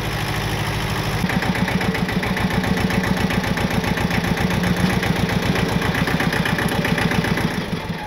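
Hinomoto compact tractor's diesel engine running steadily just after a hard cold start, with an even, rapid firing beat. The beat grows louder about a second in and fades near the end.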